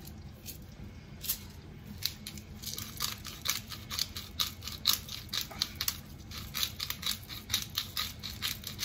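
Hand-twisted pepper grinder grinding pepper into a pot: a run of short, sharp clicks, several a second, starting about a second in.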